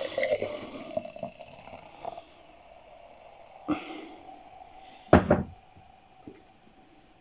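Liquid poured from a plastic measuring jug into a glass jar, splashing and filling over the first couple of seconds with a faintly rising pitch. A short loud noise follows about five seconds in.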